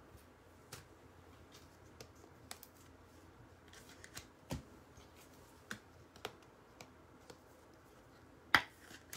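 Prizm basketball trading cards being handled on a table: scattered light clicks and taps, with a sharper tap about eight and a half seconds in.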